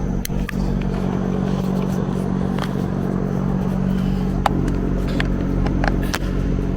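An engine idling steadily, with scattered light clicks and taps of a hand tool as a part is screwed back on and tightened down.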